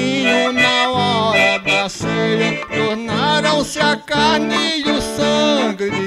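Piano accordion (sanfona) playing a melody over sustained low bass and chord notes.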